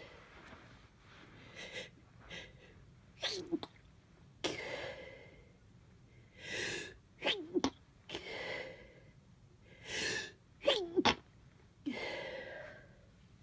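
A person sneezing several times. The later sneezes come in quick pairs, each pair led by a drawn-out voiced in-breath and followed by a breathy out-breath. The sneezer has a stuffy head cold.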